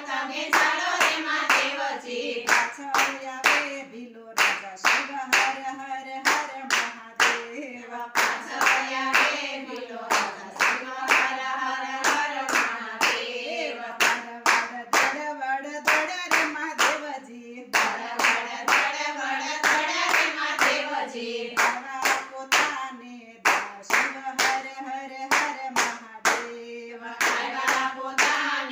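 A group of women singing a Gujarati Shiva bhajan in unison, keeping time with a steady rhythm of hand claps, about two or three claps a second.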